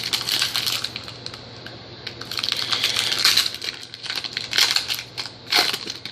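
Trading card pack wrapper crinkling and rustling as it is handled and opened, in several bursts of crisp crackle with small clicks.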